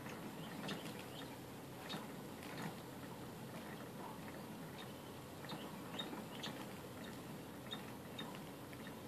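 Small pet rodents moving about a plastic cage: faint, irregular light clicks and scratches.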